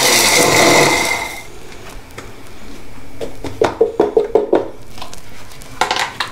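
Electric mixer grinder running with a steel jar of roasted whole spices (fenugreek, carom, fennel and nigella seeds), its motor pitch falling as it winds down and stopping about a second in, the spices left coarsely ground. Then a few clicks and knocks as the jar lid is taken off.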